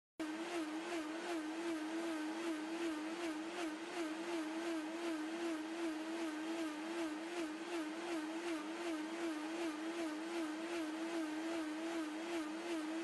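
Bosch VitaBoost MMBH6P6B 1600 W high-speed blender running its automatic soup program, which heats the soup by blade friction. The recording is sped up eightfold, and the motor gives a steady whine that wavers regularly in pitch. It cuts in abruptly at the start.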